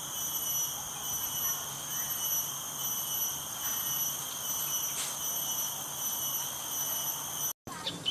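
Steady high-pitched chorus of tropical insects: several unbroken tones layered over a soft hiss. It breaks off briefly near the end.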